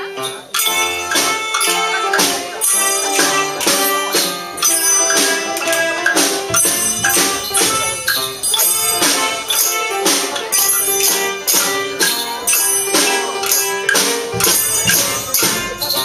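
Children's percussion band playing along to a melody: tambourines, snare drum, bass drum and hand percussion striking together on a steady beat, about two strikes a second.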